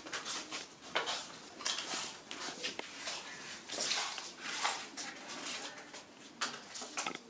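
Hand-work handling noise: irregular scraping, rustling and light clatter of paper cracker tubes being pushed into blue plastic ground-chakra wheel frames.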